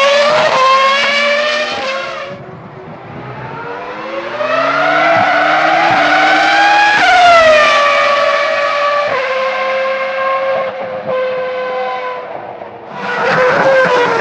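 Ferrari F2002 Formula One car's V10 engine at high revs, fading out about two seconds in. It returns, rising in pitch and loudness under acceleration to a peak a few seconds later, then falls in pitch, with a step down near nine seconds, as the car passes and shifts down. A loud engine cuts back in near the end.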